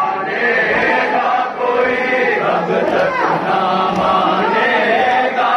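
A crowd of many voices chanting together, steady and unbroken.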